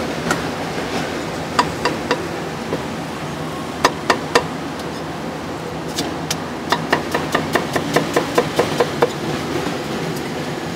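Cleaver chopping on a thick round wooden chopping block: a few separate strikes, then about two-thirds of the way in a quick run of about a dozen chops, around four a second.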